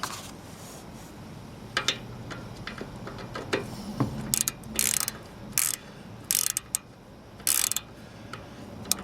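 Ratchet wrench with a 17mm socket working the large drain plug on a GY6 scooter engine: a few scattered clicks, then several short runs of ratcheting clatter.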